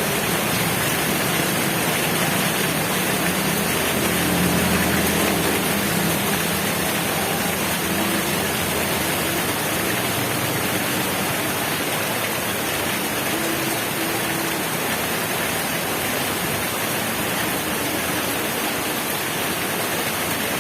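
Heavy rain falling steadily, a dense even hiss, with a faint low hum rising briefly about four seconds in.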